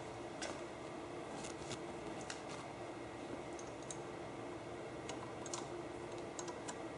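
Hand tap being turned in its tap wrench to cut threads in a metal handguard bar: faint, irregular light clicks and ticks of metal working.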